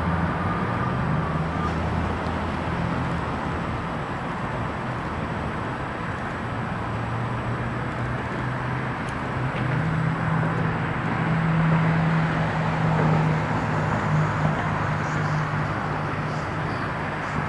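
Steady vehicle traffic noise with the low hum of an engine, growing louder a little past the middle.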